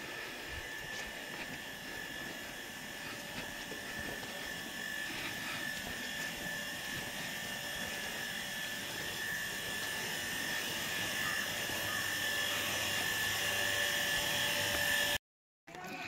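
Steady mechanical drone with a constant high whine, slowly getting louder, which stops suddenly near the end.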